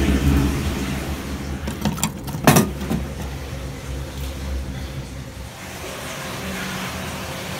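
A low droning rumble that fades away about two thirds of the way through. Around two seconds in come a few knocks, the loudest a sharp clank, as of hands and feet on a rusty metal ladder leading down into a concrete drain pipe.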